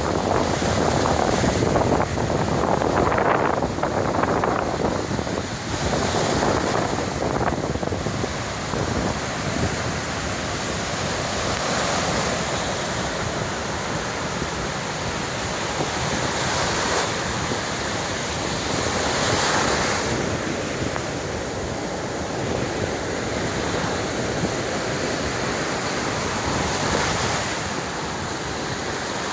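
Heavy surf: large waves breaking on the beach in repeated swells, with wind rumbling on the microphone.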